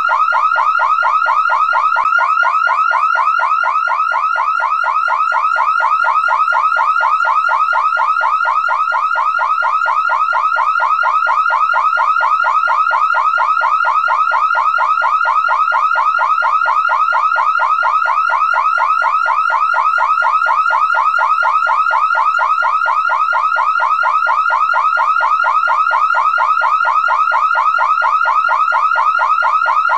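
Car alarm siren sounding continuously: a loud, rapid, evenly repeated rising whoop that never pauses.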